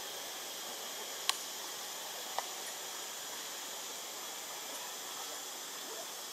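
Steady outdoor background hiss, with two short sharp clicks about a second apart early on.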